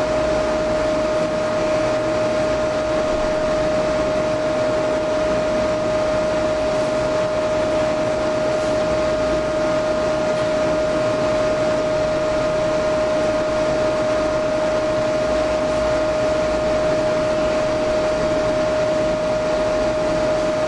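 Steady whirring of a cooling fan with a constant whine on one pitch, unchanging throughout.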